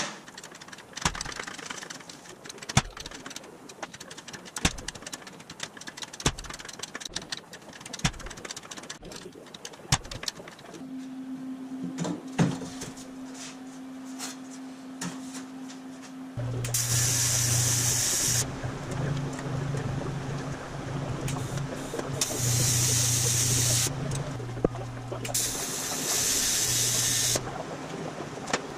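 Several bursts of AC TIG welding on aluminium sheet in the second half: a loud buzzing hum with a high hiss, each arc held for one to two seconds and then stopped. Before that come regular knocks about every two seconds, and a steady hum joins in midway.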